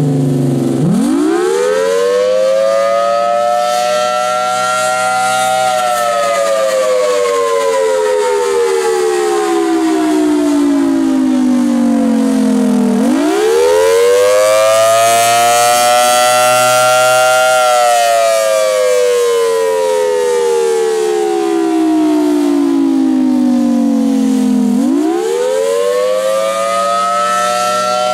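Federal Signal Thunderbolt 1000T civil-defense siren sounding its Attack (tornado) wail, with the chopper pitch setting in its control cabinet altered. The pitch winds up, holds high for a couple of seconds, then slides slowly down, about every twelve seconds; it rises three times.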